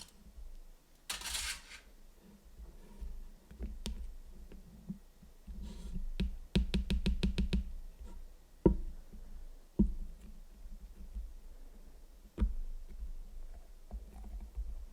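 Close-miked handling of a giant Kinder Surprise Maxi chocolate egg and its wrapping. A short rustle comes about a second in, a quick run of about eight clicks follows in the middle, and a few sharp taps or knocks come later.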